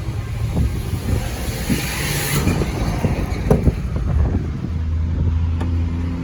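Volkswagen 25320 truck's diesel engine running, with scattered knocks and a burst of hiss about two seconds in, settling into a steady low hum in the second half.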